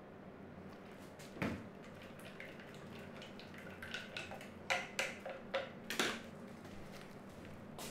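Plastic pots of tinted resin and their wooden stirring sticks knocking and clinking as they are handled: one knock about a second and a half in, then a quick run of short clinks and knocks a few seconds later, over a steady low hum.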